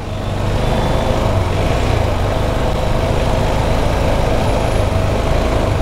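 Steady rush of road and wind noise over a low engine hum while riding a motorcycle in traffic, building up over the first second and then holding steady.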